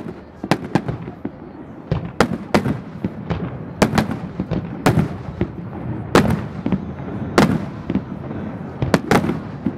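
Aerial firework shells bursting in a rapid, irregular string of sharp bangs, about two a second, each trailing off in an echo.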